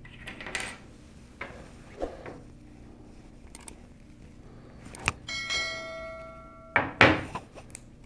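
Soft handling noises of a network cable on a table, then a click about five seconds in followed by a ringing notification-bell chime, the sound effect of a subscribe-button animation. A loud clunk comes just after, as the RJ45 crimping tool is set down on the table.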